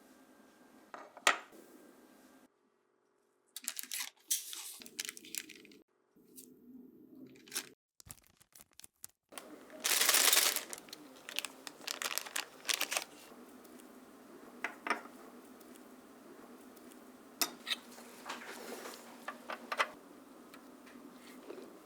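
Handling small model-car parts on a bench: scattered light clicks and taps with crinkling. A louder rustling, hissing burst lasts about a second around ten seconds in. The sound drops out abruptly several times in the first half.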